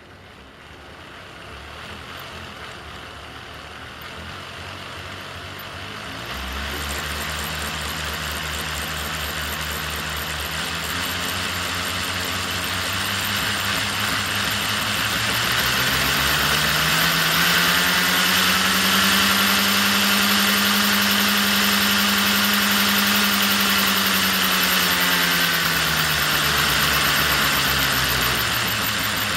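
Motor and gear drive of a TOMIX 16-gauge ED75 electric locomotive model running. Its whine rises in pitch as it speeds up through the middle and drops again near the end, over a steady hiss. It carries an abnormal noise that the owner traces to a bogie gearbox.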